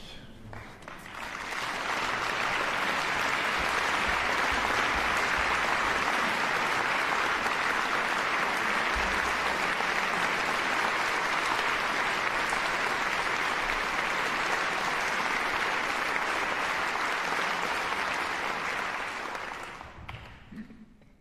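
Audience applauding in a hall: the clapping swells over the first two seconds, holds steady, and dies away near the end.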